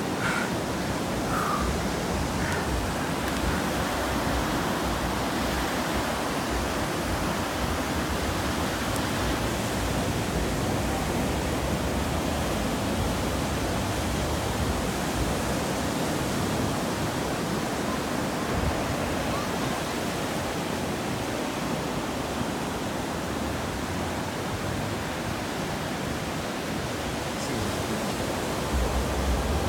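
Ocean surf breaking and washing up a sandy beach: a steady rush of noise.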